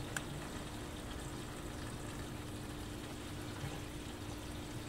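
Bengal cat eating dry kibble from a gravity feeder bowl, faint crunching with a few small ticks over a steady hiss and low hum.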